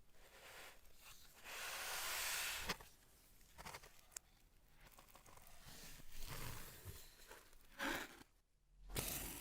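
Faint rustling and scraping handling noises with a few sharp clicks, like packaging or film being torn or peeled.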